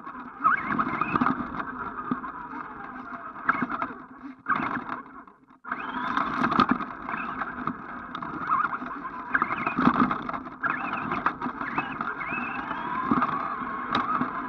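Electric motor and gears of an ECX AMP radio-controlled truck whining, the pitch rising and falling with the throttle, over a rattling rush of tyres and chassis on rough concrete, heard from a camera strapped to the truck. About five seconds in the sound briefly drops out almost to nothing, then picks up again.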